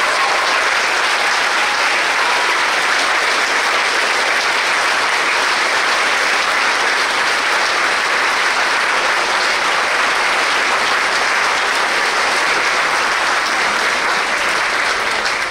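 A large audience applauding steadily, a long sustained round of clapping that begins to die away near the end.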